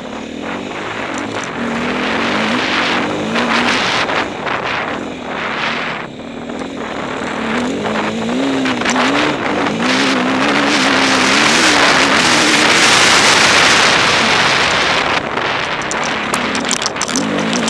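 Enduro motorcycle engine revving up and down under load, its pitch rising and falling over and over. A loud rushing wind noise on the helmet-mounted microphone swells through the middle and eases near the end.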